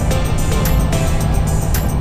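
Background music with a steady beat and short melodic notes.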